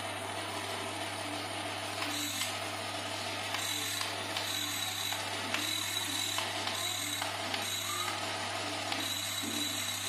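Small toy-grade DC motors wired to an RC receiver board, running steadily with a rattling whir. A thin high whine cuts in and out several times as the transmitter switches them on and off.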